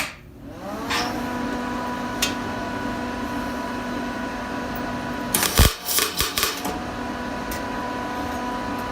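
A welder is switched on, its hum rising in pitch and settling to a steady drone. About five and a half seconds in comes a short burst of sharp crackling as a tack weld is struck, and then the hum runs on.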